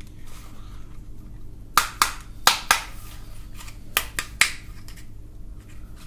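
Hard plastic clicks and clacks from a toy shotgun being handled: a group of four sharp clicks about two seconds in, then three more about four seconds in.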